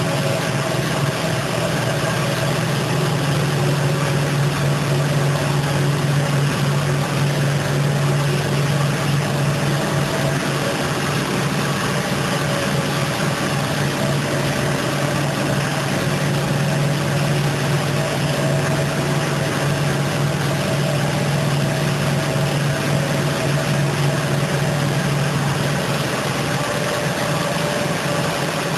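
Carpet-washing factory machinery running steadily: a constant low hum with fainter higher tones above it.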